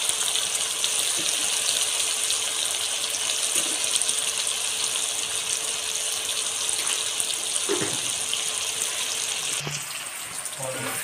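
Chopped onions frying in oil in a kadhai, a steady sizzle, with a metal spoon stirring now and then.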